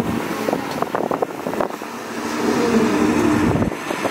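Caterpillar 320C excavator's six-cylinder diesel engine running under digging load. A cluster of short knocks and clatters comes about a second in as the bucket works the dry soil. The engine's tone rises and falls about two to three seconds in as the boom lifts and swings.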